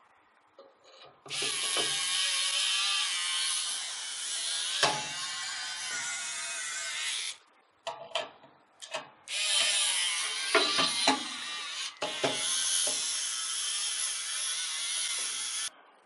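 A screwdriver driving screws into a PC case's steel drive cage to mount a drive, with ratcheting mechanical noise. It comes in three long runs of several seconds each, with a few short clicks and knocks between the first and second.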